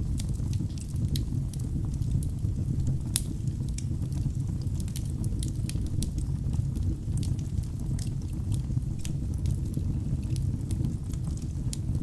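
Log fire burning in a fireplace: a steady low rumble of flames with frequent sharp crackles and pops from the burning wood, one louder pop about three seconds in.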